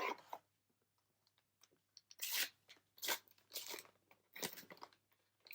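Foil trading-card booster pack being torn open, its wrapper crinkling in four short bursts of tearing from about two seconds in.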